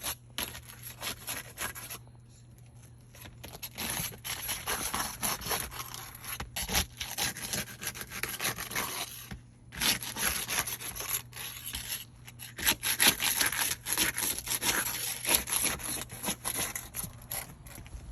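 Irregular rubbing and scraping, on and off, with a quieter pause about two seconds in.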